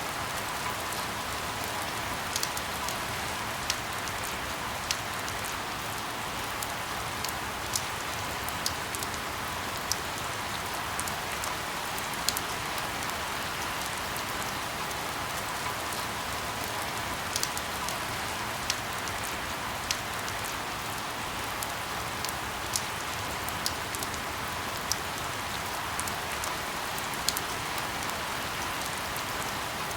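Steady rain falling, with irregular sharp ticks of individual drops hitting a hard surface.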